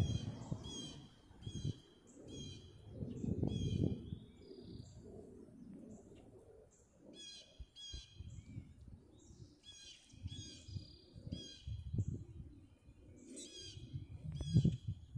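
A bird giving short calls over and over in quick runs, each note bright and high with overtones, over a low, uneven rumble.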